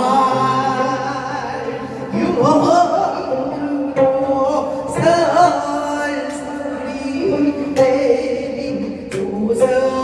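A woman singing a Korean traditional-style song with a wavering vibrato, to a fusion gayageum (Korean plucked zither) and a steady sustained accompaniment with a regular beat.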